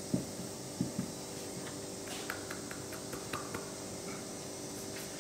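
Hands mixing dry buckwheat flour and binder flour in a large lacquered soba bowl. There are two soft thumps in the first second, then light scratchy ticks, over a faint steady hum.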